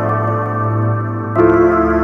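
Background music of held keyboard chords, changing to a new chord with a deeper bass about one and a half seconds in.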